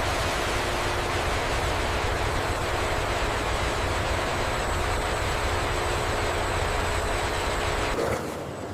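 Steady machinery noise: a dense even rush with a low rumble and a faint steady hum. It starts abruptly, and about eight seconds in the rumble drops away and the sound changes.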